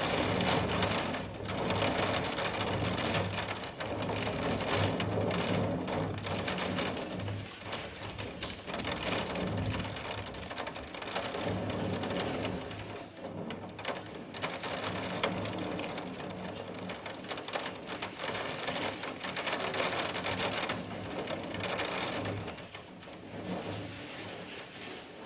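Storm wind and rain. The noise swells and eases in gusts over a steady low hum.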